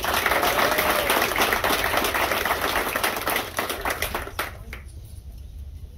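A small crowd clapping, a dense patter of many hands that dies away about four to five seconds in.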